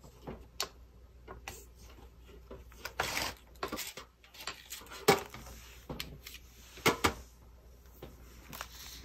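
Hands handling a paper journal page while holding down a hot-glued embellishment: scattered light taps and clicks, with a brief rustle of paper about three seconds in and a few sharper taps later.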